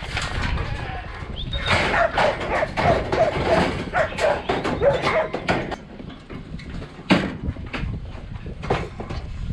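A dog barking in a quick run of short barks, with knocks and clatter around it.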